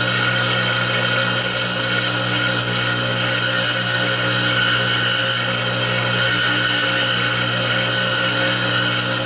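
Small benchtop wood lathe running steadily, its motor giving a constant hum with several steady tones, while a diagonal-edged skew chisel is held to the spinning wood to cut it.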